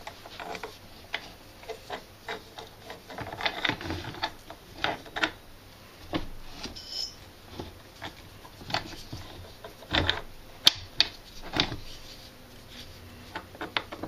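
Steel sockets, the aluminium swingarm and the bench vise clinking and knocking together as the sockets are lined up to press out a swingarm bearing: irregular metallic clicks and knocks, the sharpest about ten and a half seconds in.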